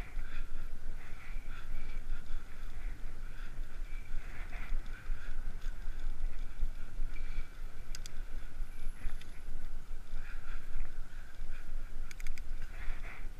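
Riding noise picked up by a bike-mounted GoPro on a Giant Escape 2 hybrid bicycle rolling along pavement: a steady low rumble of wind and road vibration on the camera. A few sharp clicks or rattles about eight seconds in and again near the end.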